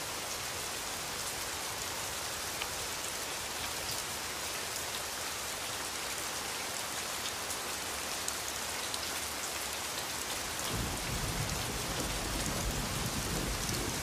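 Steady rain falling, an even hiss of drops. About ten seconds in, a low rumble joins beneath it.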